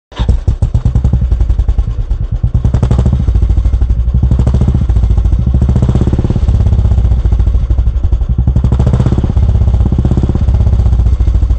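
Royal Enfield single-cylinder engine running through a Wild Boar aftermarket silencer, with a steady, even exhaust beat. The throttle is blipped twice, briefly, about three seconds in and again near nine seconds.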